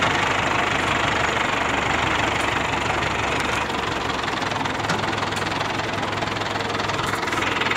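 Mobile crane's diesel engine running steadily, with a slight change in its low note about halfway through.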